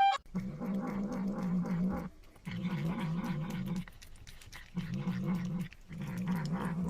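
A dog growling in four long, wavering rumbles with short pauses between them.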